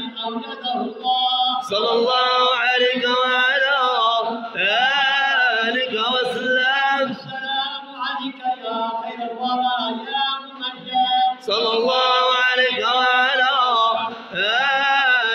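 Men's voices chanting a devotional Arabic praise song to the Prophet (madih), in long, wavering sung phrases with short breaks between them.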